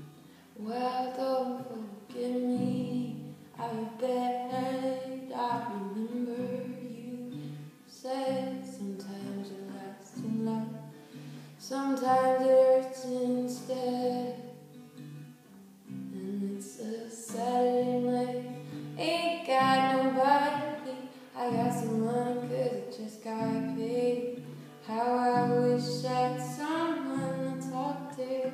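A voice singing a song to strummed acoustic guitar.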